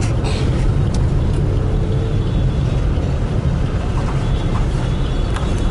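Steady low rumble of a vehicle driving along a road: engine and tyre noise at an even level.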